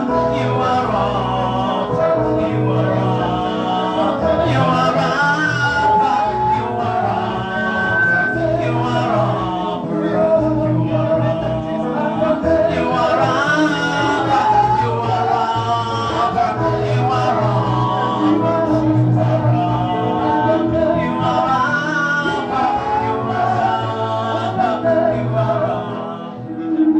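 Music: a song with singing over steady instrumental backing, in a gospel style.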